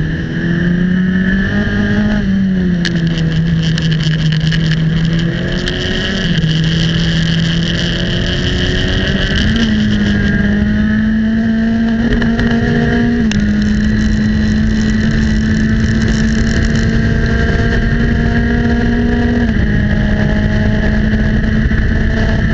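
Formula Enterprises 2 race car's Mazda four-cylinder engine under power on track, heard from onboard, its note stepping up and down with throttle and gear changes and holding level for long stretches, over constant wind and road rush.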